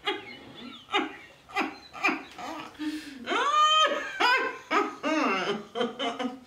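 A woman laughing in short repeated bursts, with one long rising, then held, cry about three seconds in.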